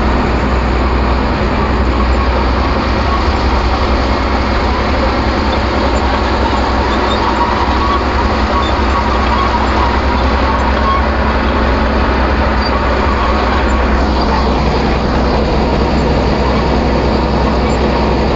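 Excavator diesel engine running steadily, a loud, even rumble with machinery noise.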